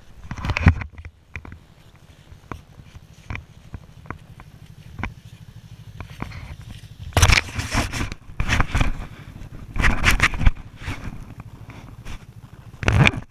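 Action camera being handled: scattered clicks and knocks on its housing, with louder bursts of scraping and rubbing past the middle and again near the end.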